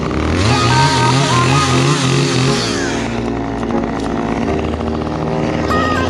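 Chainsaw running and revving, mixed with background music.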